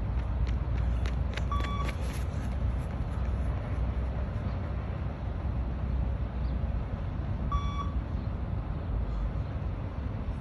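Two short electronic beeps from a beep-test (shuttle run) recording, about six seconds apart, each marking the end of a 20 m shuttle at level 7. A steady low rumble runs under them, with a few faint clicks around the first beep.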